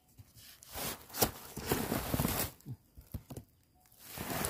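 Rustling and crackling of dry bamboo leaves and stalks, with a sharp snap about a second in and a few smaller cracks after it.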